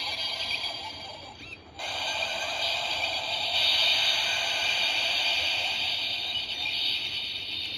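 Kamen Rider Zero-One Ark-One Progrise Key toy playing an electronic, music-like sound effect. It breaks off briefly about a second and a half in, then resumes as a long sustained effect that begins to fade near the end.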